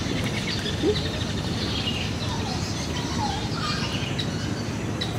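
Birds chirping in scattered short calls over a steady low background rumble of outdoor ambience.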